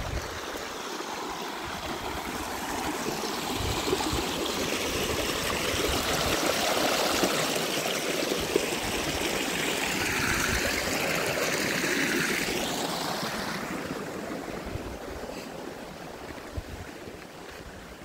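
Shallow creek running over rocks, a steady rush of water that grows louder in the middle and fades near the end, with some wind rumble on the microphone.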